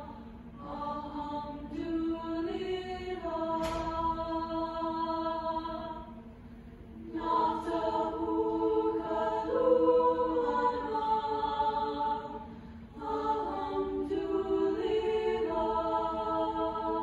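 Mixed high school chamber choir singing held chords in long phrases, dropping away briefly about six seconds in and again near thirteen seconds. A single sharp hit sounds about four seconds in.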